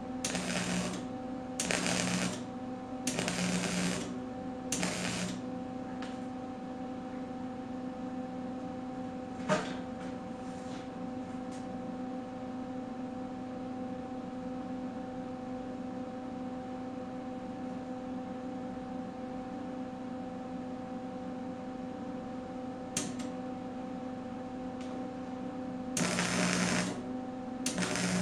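Wire-feed welder arc crackling on sheet steel in four short stitch-weld bursts over the first five seconds. A long pause with only a steady electrical hum and a single knock follows, then the arc starts crackling again about two seconds before the end.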